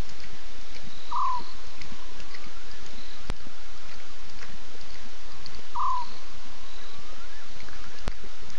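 A short call from a small night animal, dropping slightly in pitch, given twice about five seconds apart, heard over a steady hiss. There are two sharp clicks between the calls.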